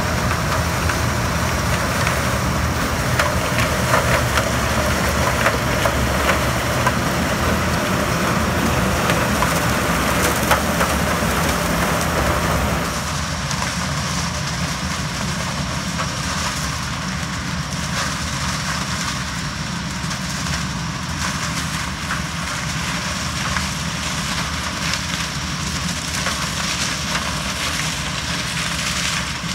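Yanmar HS2000 sugarcane harvester running, a steady low engine drone under a dense crackle of cane being cut and chopped. About thirteen seconds in, the crackling and rushing noise fall away sharply and the engine runs on steadily.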